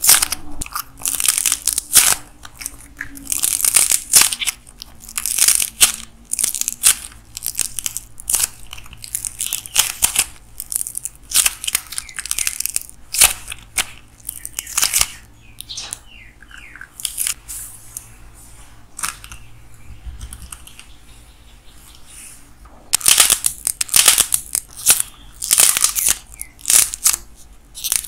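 Clay model with a glossy-coated shell being squeezed and torn apart by hand, crackling and crunching in quick sharp bursts. The crackling thins out and softens for a stretch past the middle, then turns dense again near the end.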